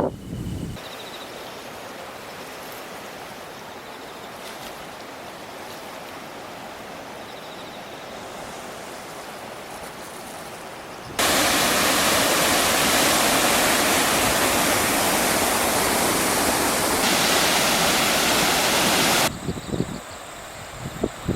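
Steady rush of a flood-swollen river. About eleven seconds in it switches abruptly to a much louder, fuller rush for about eight seconds, then drops back, with buffeting wind on the microphone near the end.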